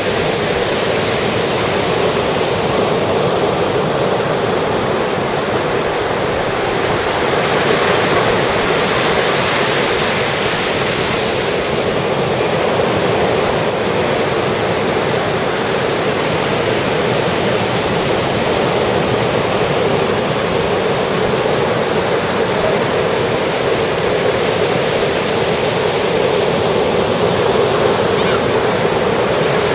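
Ocean surf breaking and washing up a beach: a steady rush of waves that swells slightly now and then.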